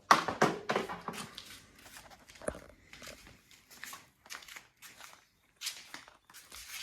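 Irregular clicks, taps and rustles of handling or moving about, busiest in the first second.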